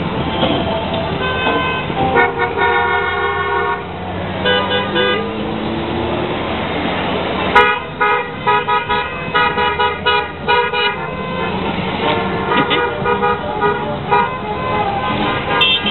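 Vehicle horns tooting in bouts of short repeated blasts, with a quick run of toots about halfway through, over the steady noise of passing traffic.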